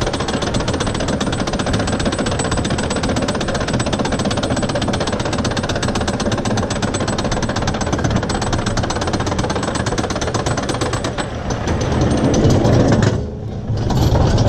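Wooden bobsled coaster car climbing its lift hill: a rapid, steady mechanical clatter of the lift and anti-rollback clicks. Near the end the clatter stops with a brief lull, then a low rumble starts as the car rolls into the wooden trough.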